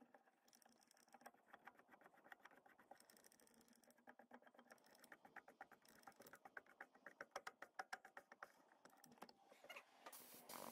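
Faint, rapid clicks and ticks of a hand tap cutting a 3/8-24 thread into a steel shaft held in a lathe chuck, the tap wrench turned by hand, busiest in the middle. The tap is one the machinist thinks is getting dull.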